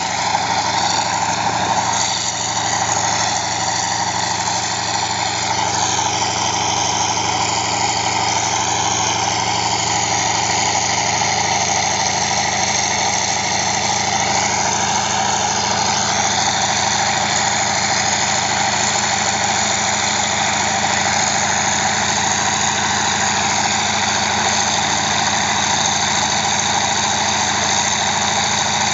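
Agricultural plane's radial piston engine idling steadily on the ground, propeller turning, with slight wavers in engine speed a few times.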